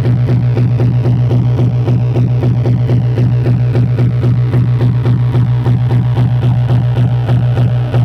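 Waldorf Quantum synthesizer playing a steady low drone under a fast, evenly pulsing sequence of plucky notes.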